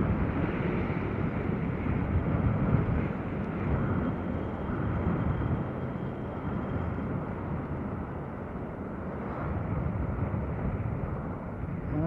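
Yamaha Sniper 150's single-cylinder four-stroke engine running while the motorcycle is under way, with steady wind and road noise.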